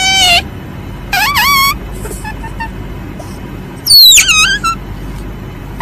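A civet giving high-pitched calls that glide downward: a long call tails off just after the start, a short wavering call comes about a second in, and a louder falling call about four seconds in. A steady low background hiss runs under them.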